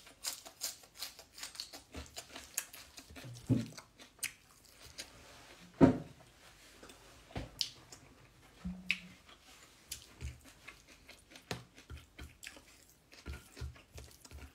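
A person chewing and smacking her lips close to the microphone while eating rice and chicken by hand, a run of quick wet mouth clicks, thickest in the first two seconds. A single louder knock comes about six seconds in.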